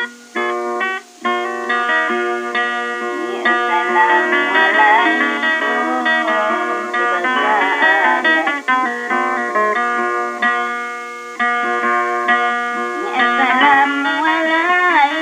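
Background music: a plucked guitar melody with quick notes and several bent, sliding notes.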